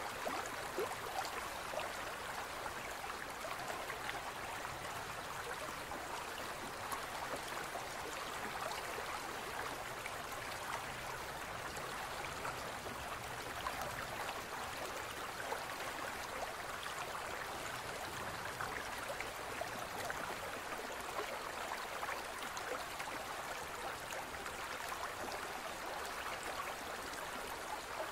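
Aquarium water trickling and bubbling steadily, with fine crackles throughout.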